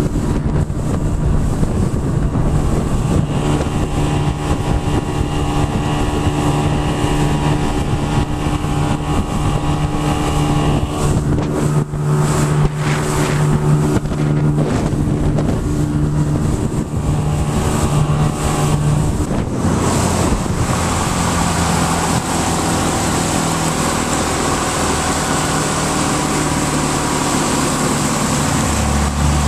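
Mercury 40 hp outboard motor running loudly with the boat under way, wind buffeting the microphone. The engine note changes about twenty seconds in.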